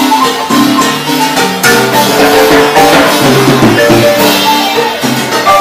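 Marimba music: rapid struck wooden-bar notes over light percussion with a shaker.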